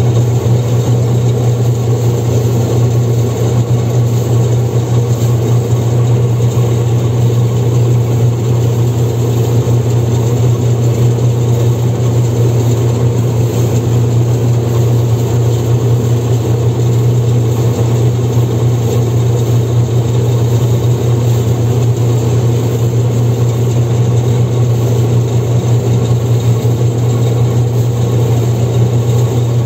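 Massey Ferguson 16 combine harvester running under load while cutting grain, heard from inside its cab: a loud, steady low drone of engine and machinery that does not change.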